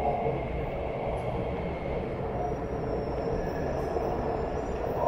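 Automatic metro train running on the line with a steady rumble, and a faint high whine in the second half.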